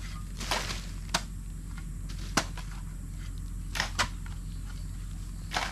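Hoe and shovel blades chopping and scraping into loose soil, about six irregular strikes, a few of them sharp.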